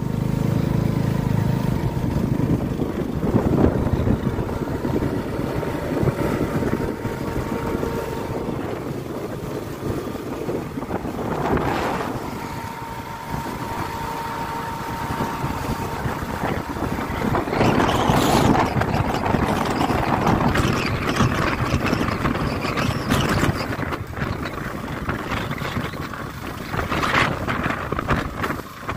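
A KTM RC sport bike's single-cylinder engine runs steadily while climbing a hill road, with wind buffeting the microphone in surges that rise and fall.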